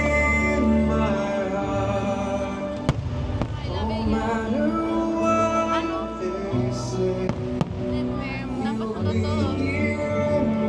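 Fireworks-show soundtrack music with singing, with a few firework bangs breaking through about three seconds in and again about seven seconds in.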